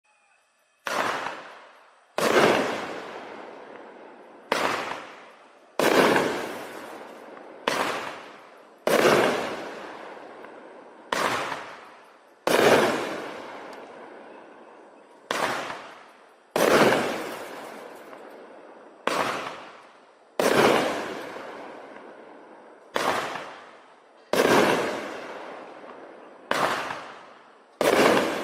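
Shogun 'Glitter King' 500-gram repeater cake firing single shots: eight times a sharp launch report followed about a second and a half later by the louder break of the aerial shell. Each bang trails off in a long echo.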